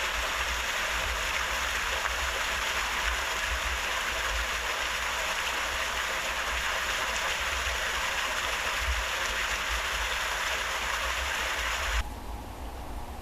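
Steady rush of running water at a canal lock, even and unbroken, which cuts off suddenly near the end to a much quieter background.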